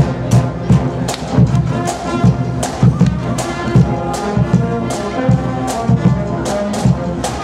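Marching band playing a tune on brass with a steady drum beat, about three strokes a second.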